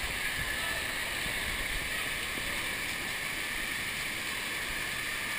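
Steady rush of water running down a water slide, blended with the general noise of an indoor water park.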